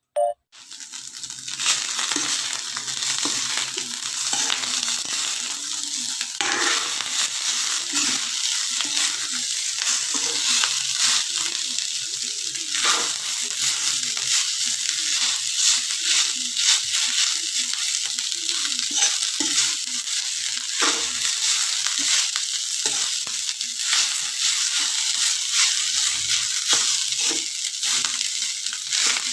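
Fried rice sizzling in a hot pan as it is stir-fried, with the spatula scraping and knocking against the pan over and over. The frying starts about a second in, after a single short knock.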